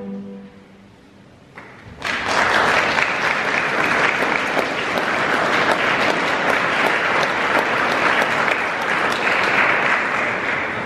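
The last chord of a string chamber orchestra dies away, and about two seconds later an audience breaks into applause, steady clapping that begins to ease off near the end.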